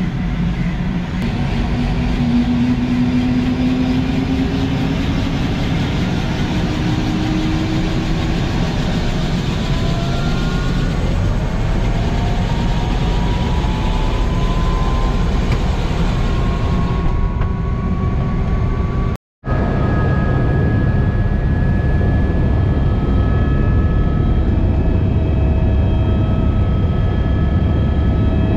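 Helicopter turbine engine and rotor running, heard inside the cabin: a steady low rumble with a whine that rises slowly in pitch as the engine spools up for take-off. About two-thirds of the way through the sound breaks off for a moment, then returns steady.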